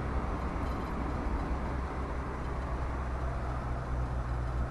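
Steady engine hum and road noise inside the cab of a vehicle being driven, with a low, even drone.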